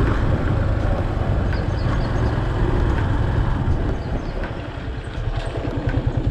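Motorcycle riding along with its engine running. It eases off about four seconds in and settles into an even, pulsing idle as it comes to a stop.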